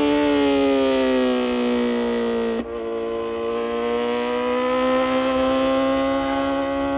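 Kawasaki Z900's inline-four engine through an aftermarket full exhaust system. The note falls slowly as the bike rolls off, breaks briefly with a dip in loudness about two and a half seconds in, then rises steadily as it pulls again.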